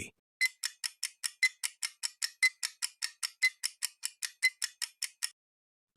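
Clock-ticking countdown sound effect: a rapid, even run of sharp ticks, about five a second, that stops about a second before the answer is read out.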